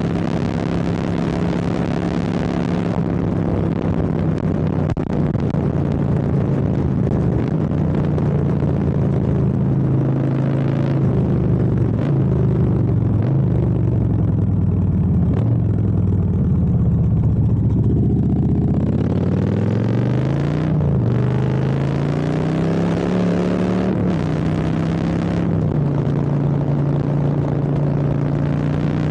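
Custom Harley-Davidson Softail's V-twin engine running continuously. Its pitch holds steady, then slowly sinks for several seconds. About two-thirds of the way through it climbs again with a short dip partway up, then settles back to a steady note near the end.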